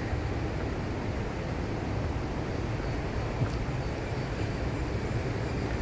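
Waterfall roar: a steady rushing noise from Athirapally Falls, with a thin high steady tone above it.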